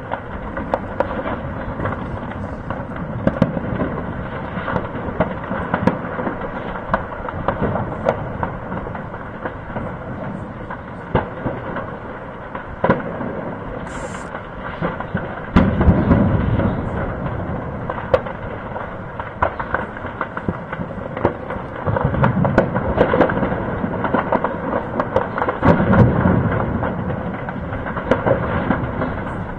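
Distant gunfire and explosions: a continuous rattle of rapid cracks and pops, broken by heavier rolling booms about halfway through and twice more near the end.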